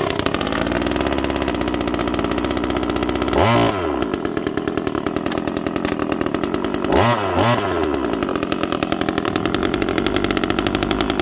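Timberpro 25cc top-handle chainsaw's two-stroke engine catching suddenly and running, its first run after three years in storage. Its speed changes briefly twice, about three and a half and seven seconds in.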